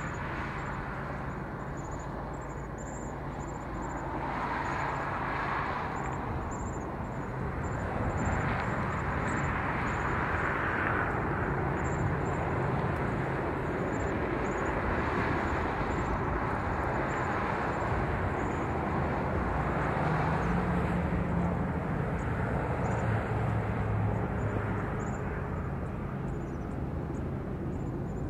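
Distant Union Pacific diesel locomotives working a northbound train, heard as a steady low engine drone under a broad rumble that grows a little louder a few seconds in.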